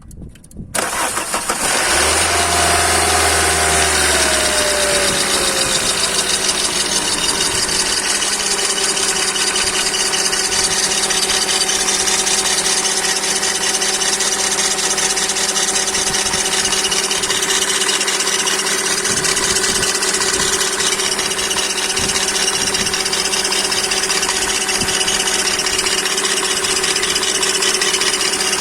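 Toyota 4ZZ-FE four-cylinder petrol engine starting up, then running at a raised idle whose pitch falls for several seconds before settling into a steady idle about eight seconds in.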